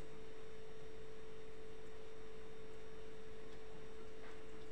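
A steady hum at one unchanging mid pitch, with faint hiss beneath it.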